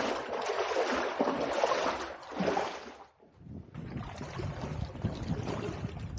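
Shallow creek water splashing and sloshing, as a hiker wades through it. It drops out briefly about halfway, then comes back heavier and lower.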